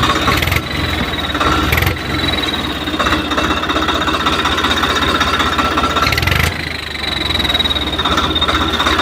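Tractor diesel engine running with a whistle fitted in its exhaust: a rapid chuffing chug with a thin, steady high whistle over it, the whistle going "chik chik chik" with the exhaust pulses.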